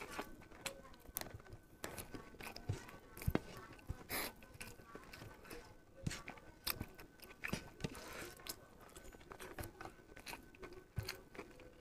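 Hand-mixing rice with curry on a ceramic plate: soft wet squishes of fingers kneading the rice, with scattered light clicks as fingertips touch the plate.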